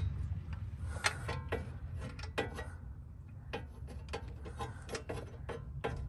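A ratchet clicking in short, irregular runs as it turns a 7/8-inch crowfoot wrench on an oxygen sensor, over a low rumble of traffic.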